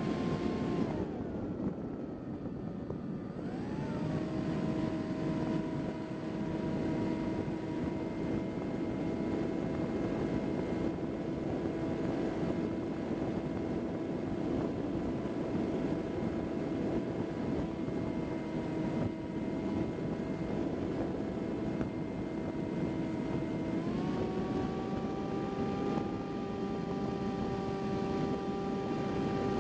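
HobbyKing Bix3 trainer's electric motor and pusher propeller whining in flight, heard from on board over a rush of air. The pitch drops as the throttle is eased about a second in, climbs back a few seconds later, and steps up again near the end as power is added.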